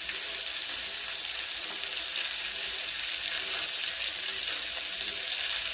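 Chicken pieces frying in hot oil with an onion-tomato masala in a pan, a steady sizzle throughout.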